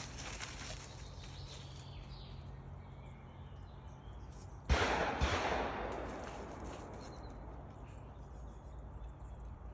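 Two sharp bangs about half a second apart, the first the loudest, with a long echo dying away over about two seconds.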